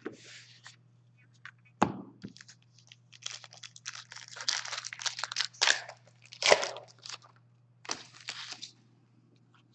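Hockey card packs being torn open and handled: crinkling wrapper rustles and card slides in bursts through the middle, with sharp knocks about two seconds in and again past six seconds.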